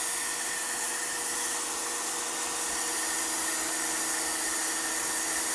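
Lutian LT501-1800A electric pressure washer with an 1800 W motor, running steadily. Its fan jet hisses against a painted brick wall, stripping off old paint, over a faint steady hum from the motor and pump.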